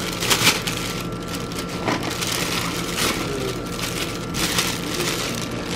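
Thin plastic bag rustling and crinkling in short repeated bursts as takeaway drink cups are packed into it.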